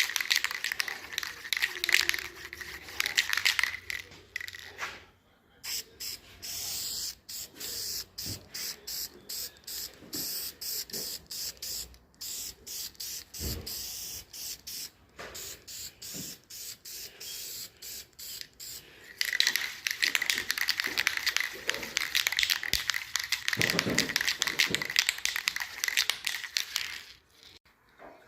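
Aerosol can of interior vinyl spray paint spraying in two long bursts, one at the start and one in the last third, with quieter clicks and rattles between them.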